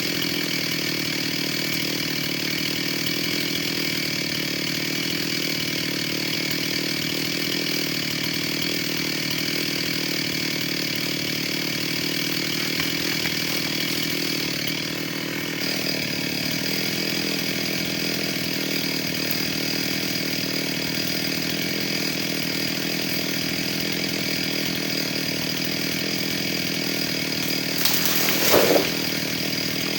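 Two-stroke chainsaw engine idling steadily after coming off throttle, with a short rev that rises and falls near the end.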